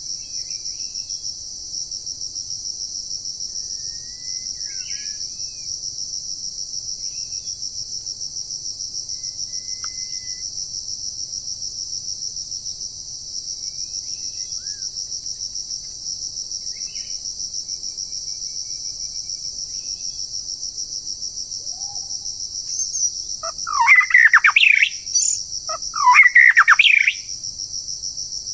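A steady, high, pulsing drone of insects, with a songbird's short whistled calls scattered through it. Near the end come two loud bursts of rapid whistled birdsong sweeping up and down, consistent with the singing duel between trapped and wild birds that the video is about.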